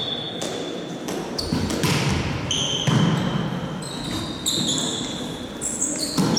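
Volleyball being struck during a rally on an indoor court, with sharp smacks of the ball and short high squeaks of sports shoes on the hall floor, echoing in the gym. The loudest smack comes about 3 s in.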